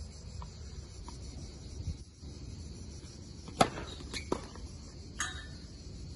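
Tennis serve: a few faint ball bounces, then a sharp, loud crack of racket strings hitting the ball about three and a half seconds in, followed by smaller clicks and another sharp hit about a second and a half after the serve.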